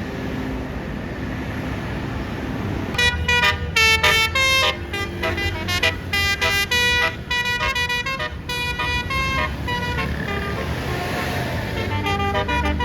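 A bus's basuri telolet horn playing a quick melody of short, bright notes, starting about three seconds in and lasting about six seconds, over the low rumble of the bus engine.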